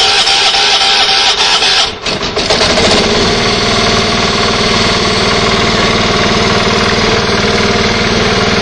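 Garden tractor's electric starter cranking the engine with a rising whine. The engine catches about two seconds in and then runs steadily.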